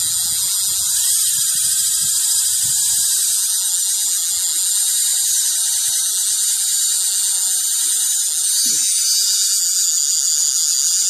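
Fishing reel's drag buzzing steadily as the kite pulls line off the spool.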